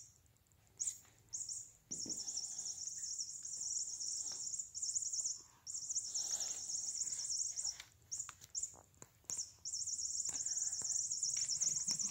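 Toy mouse cat toy chirping like a bird. The high-pitched chirping comes in stretches of one to four seconds that stop and start, with a few short knocks as the cat bats the toy.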